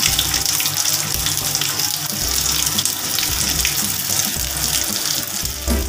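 Meat frying in hot oil in a pan: a steady sizzle.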